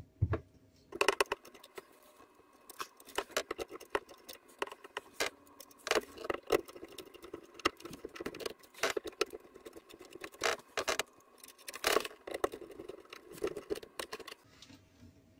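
Small screwdriver working the screw terminals of a solar charge controller, with the stiff cables and plastic connectors knocking and rattling against it: irregular light clicks and scrapes, stopping just before the end.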